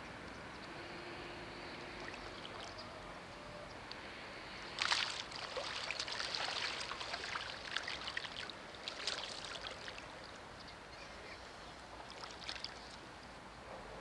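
Water splashing: a sudden loud splash about five seconds in, then several seconds of crackling, trickling splashes that die away, with a shorter splash near the end.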